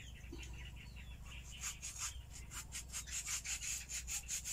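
Small kitchen knife paring the skin off a ripe mango: quick, repeated scraping strokes, about four or five a second, starting about one and a half seconds in.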